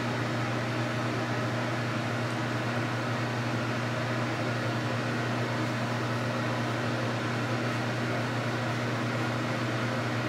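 Steady low motor hum over an even hiss: a fan running.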